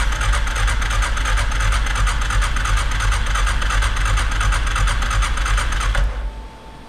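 Arctic Cat 500 cc ATV engine being cranked over on its electric starter with a fast, even chugging for about six seconds without catching, then the starter is released and it stops. It does not fire because the freshly reinstalled carburetor has no fuel in it yet.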